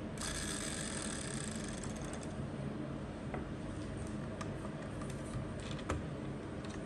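Handling noises from a 1:24 diecast Bentley Mulsanne model car: a scratchy mechanical whir and rattle that fades out over the first two seconds, then a single sharp knock about six seconds in as the model is set down on the table, over a steady background hum.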